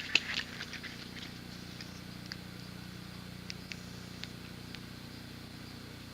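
Light clicks and taps of small gear being handled, a few sharper ones in the first second, then scattered faint ones, over a steady low hum.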